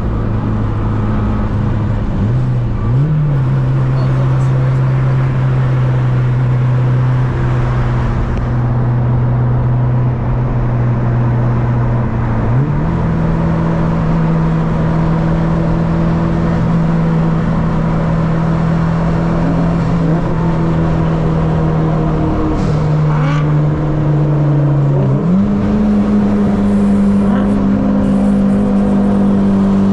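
Turbocharged Honda Civic engine heard from the moving car, running at steady engine speeds. The pitch steps up about 2.5 s in and again at about 12.5 s, drops near 22.5 s, then rises at about 25 s and climbs further at the very end.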